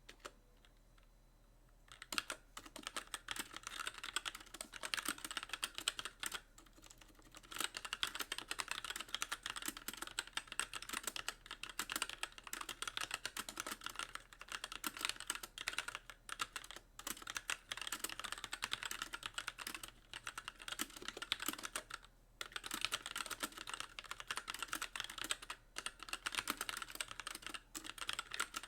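Continuous typing on a Magicforce mechanical keyboard with light linear Gateron Clear switches and stock keycaps, the keys bottoming out in a rapid stream of clicks. The typing starts about two seconds in and pauses briefly twice.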